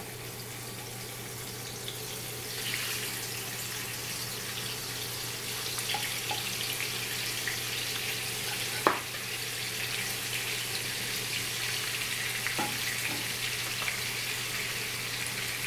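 Masala-coated chicken leg pieces sizzling in shallow hot oil as they are laid into the pan, the sizzle swelling about two and a half seconds in. A few sharp clicks cut through it, the loudest about halfway through.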